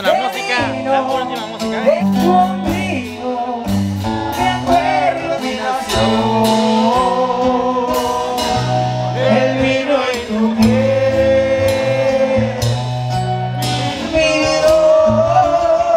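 Background music: a song with guitar, a stepping bass line and singing.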